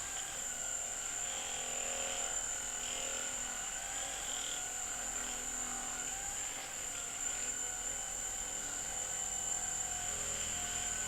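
Steady motor whir of an electric massager being worked over the back muscles to loosen them before a chiropractic adjustment, its pitch wavering slightly.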